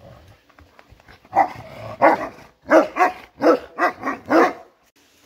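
A dog barking in a quick run of about seven short barks, starting about a second in and stopping shortly before the end.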